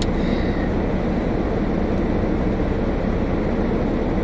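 Steady rumble and hiss inside a car cabin, with a short click at the start.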